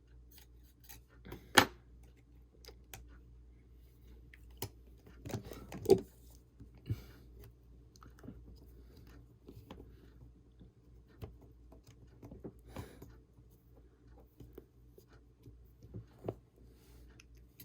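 Scattered small clicks and taps of phone parts and small tools being handled, as the iPhone 6's metal display bracket is fitted back over the connectors, the sharpest about a second and a half and six seconds in. A faint steady low hum runs underneath.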